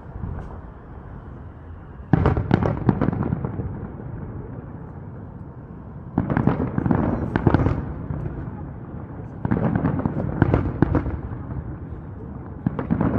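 Aerial fireworks going off in volleys of rapid cracks and bangs, four clusters a few seconds apart. A low rumble lingers between the volleys.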